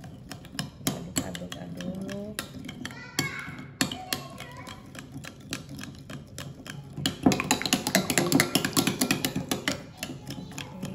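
A spoon stirring salad dressing, clicking and scraping rapidly against the container. About seven seconds in, the stirring turns faster and louder for a few seconds.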